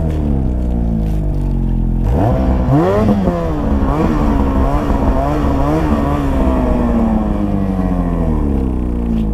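Snowmobile engine running hard in deep powder. About two seconds in the revs jump sharply, rise and fall unevenly for several seconds, then ease off slowly near the end.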